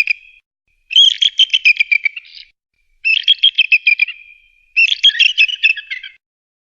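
Eagle calling: series of rapid, high, piping chitter notes, each series about a second and a half long and separated by short stretches of silence. The tail of one series ends just at the start, then three more follow.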